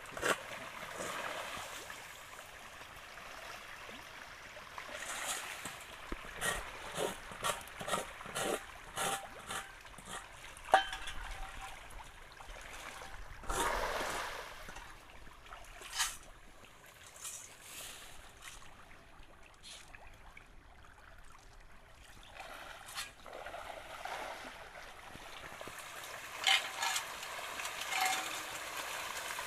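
Hybrid pangasius catfish splashing and thrashing at the pond surface in a feeding frenzy over pelleted feed: many sharp slaps and splashes over a steady churning of water, with a longer, heavier splash in the middle.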